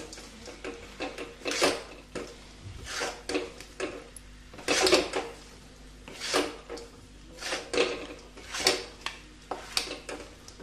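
A wooden spatula and a metal spoon scraping and knocking against a metal kadai as fried potato fingers are tossed in thick chilli sauce. The scrapes come irregularly, about one a second.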